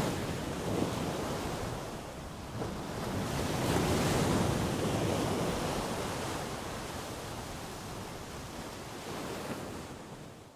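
Sea waves washing up on a sandy beach: a wash of surf swells about three seconds in and then slowly recedes.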